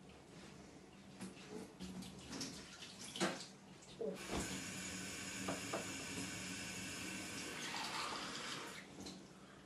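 Kitchen tap turned on and running steadily for about four seconds, starting about four seconds in, after a few light knocks and clinks at the counter.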